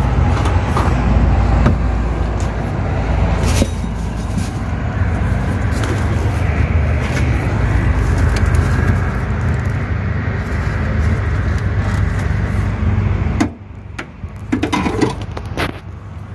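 Steady low mechanical rumble, like a motor or engine running, that cuts off abruptly about thirteen seconds in; a few light clicks and knocks follow.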